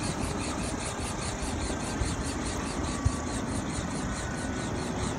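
Robinson R44 helicopter running on the ground with its two-bladed main rotor turning: a steady engine drone with a fast, even rotor beat.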